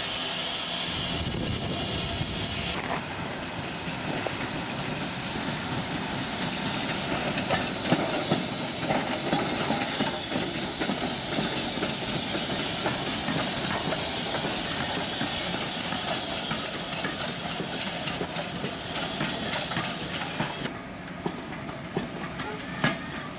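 A standing steam locomotive hissing steam for the first three seconds. Then an LMS Black Five 4-6-0 steam locomotive passes close by, followed near the end by its carriages clattering over the rail joints in a regular rhythm.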